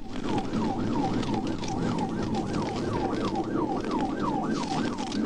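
Police cruiser's siren in fast yelp mode, its pitch sweeping up and down about three to four times a second over steady road noise from the pursuing car.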